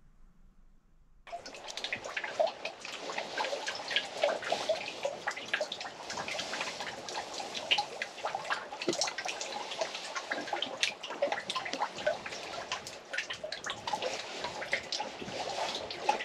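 Shallow water lapping and splashing: a busy patter of small splashes and drips that starts after about a second of near silence.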